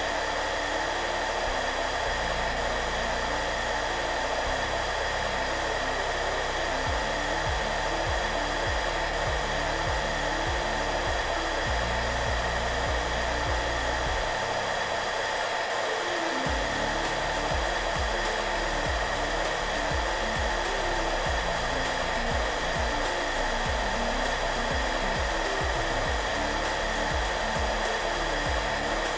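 Hair dryer running steadily: an even rushing hiss with a few constant whining tones, over soft music whose low notes change underneath it.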